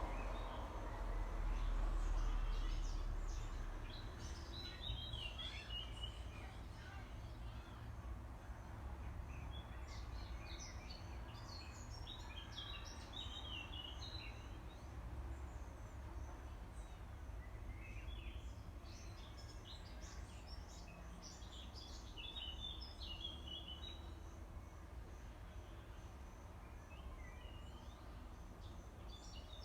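Songbirds singing in repeated chirping phrases that come in clusters with short pauses, over a steady low rumble.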